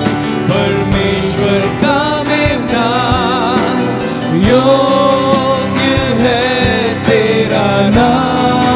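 A live worship band playing a song with drums. A singer holds long notes with vibrato over the accompaniment.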